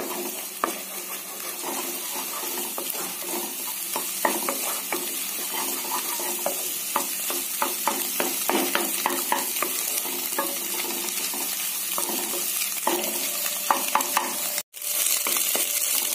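Scrambled eggs sizzling in hot oil in a kadai on high flame, with a wooden spatula scraping and tapping against the pan many times as the eggs are stirred and broken up. The sound cuts out for an instant near the end.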